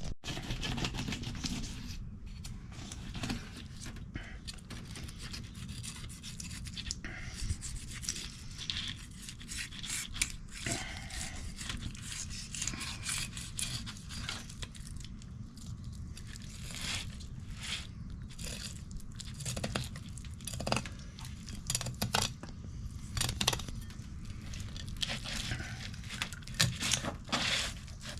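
A knife scraping and cutting through fish as the catch is cleaned and filleted, in many short, irregular strokes.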